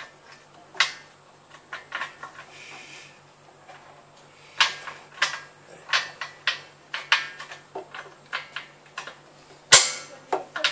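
Irregular sharp clicks and taps of fingers and a rubber gasket against the threaded studs and flange of an electric water heater's heating-element port as the gasket is worked into place, with one louder knock near the end.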